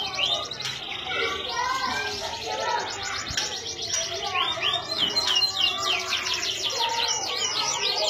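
A domestic canary sings a continuous song. Long, very fast trills alternate with runs of swooping, arched notes.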